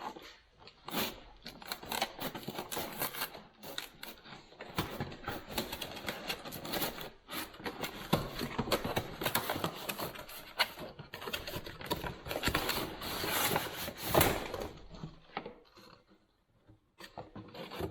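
A grease gun's packaging being opened and handled by hand: irregular rustling, scraping and many small clicks and knocks, busiest in the middle and thinning out near the end.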